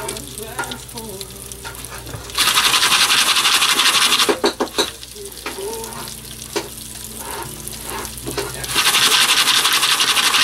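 Jiffy Pop foil pan shaken back and forth on a gas stove's burner grate, the unpopped kernels and oil rattling and swishing inside, in two spells of about two seconds: a couple of seconds in and again near the end. The kernels have not started popping yet.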